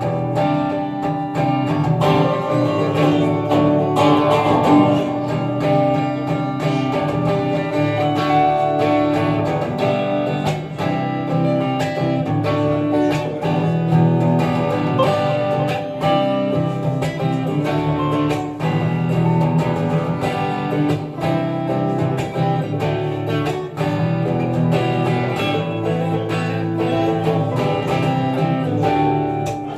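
Guitar playing the instrumental introduction to a song, steady chords with no singing yet.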